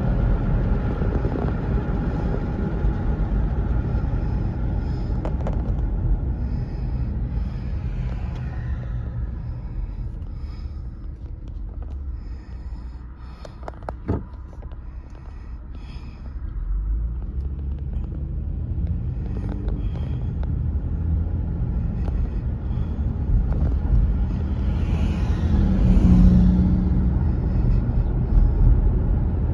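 Car interior road and engine rumble while driving. It drops for a few seconds as the car slows and sits at a light, with one sharp click near the middle, then builds again as the car pulls away.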